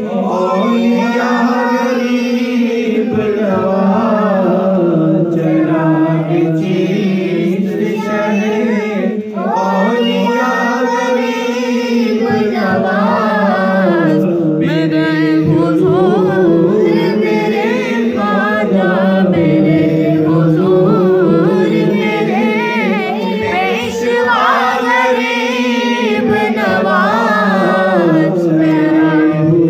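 Men's voices singing an Urdu devotional manqabat without instruments, long drawn-out melodic phrases over a held low note.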